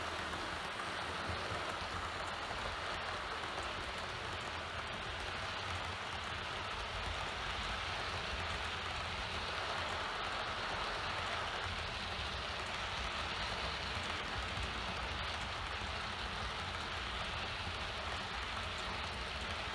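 Model railway tank wagons rolling past on the track: a steady, even rushing of the metal wheels on the rails, with a low hum underneath.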